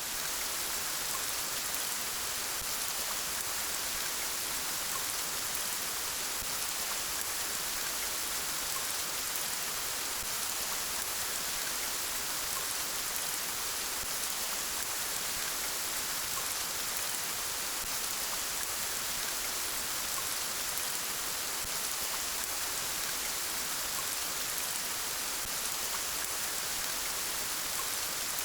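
Steady rain falling, an even hiss with faint scattered drop ticks and no let-up.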